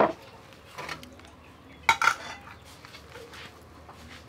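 A few separate sharp metal clanks from an aluminium cooking pot and its lid handled with metal tongs. The loudest comes near the end, as the lid is set on the pot.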